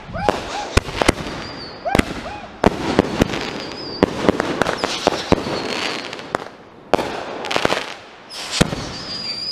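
Consumer aerial fireworks firing in rapid succession, with sharp bangs about once or twice a second and short whistles between the shots.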